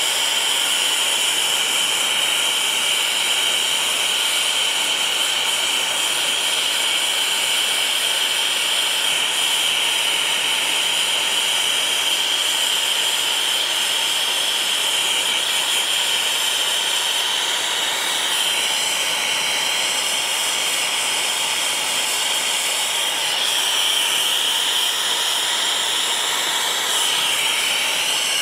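TurboTorch air-acetylene torch with an 8 tip burning, a steady hissing rush of flame as it heats a copper pipe joint for brazing. The pitch of the hiss wavers briefly about two-thirds of the way through and again near the end.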